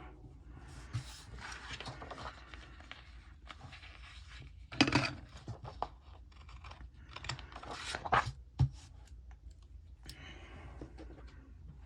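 Paper being handled and pressed onto a planner page: soft rustling and scratching, with a few brief sharper crinkles and taps, the loudest about five and eight seconds in.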